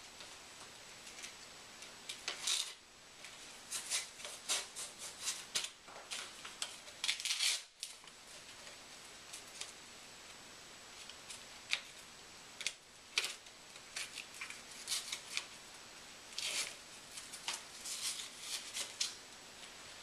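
Straps on hard-plastic KFO leg braces being fastened and adjusted by hand: scattered short scratchy rasps and rustles with a few clicks, coming in clusters.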